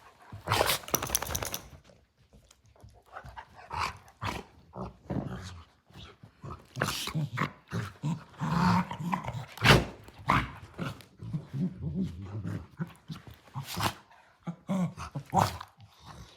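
Two dogs play-fighting, trading repeated sharp sneezes with short low growls in between: play sneezing, the sign that the roughhousing is friendly.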